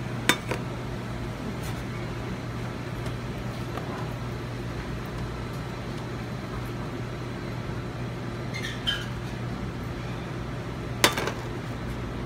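Kitchenware clinking as a dish is plated: a small metal bowl and a ceramic plate knock lightly, with a sharp clink just after the start and another near the end. A steady low hum runs underneath.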